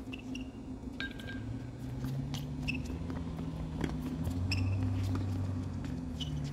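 Tennis rally on a hard court: sharp pops of racket strikes and ball bounces, with brief high shoe squeaks, over a steady low hum.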